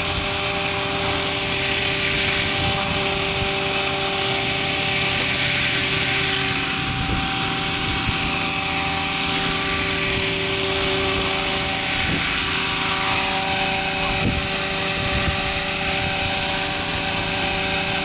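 Radio-controlled model helicopter hovering low, its rotor blades and motor giving a steady whine over the whoosh of the blades, the pitch shifting slightly as it moves.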